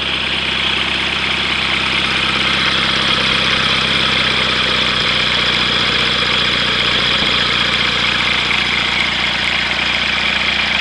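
HKS 700E flat-twin four-stroke aircraft engine on a test stand, idling steadily at about 2,000 rpm while turning a 68-inch three-blade adjustable propeller. The sound grows a little louder in the first second or two, then holds even.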